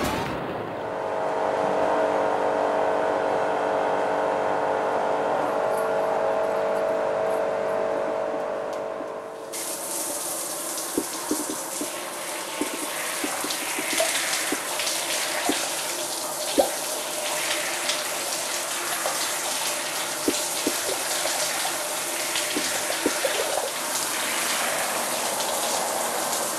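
A shower running: an even hiss of spraying water with scattered small drips and taps. It starts abruptly about a third of the way in. Before it there is a steady drone of several held pitches.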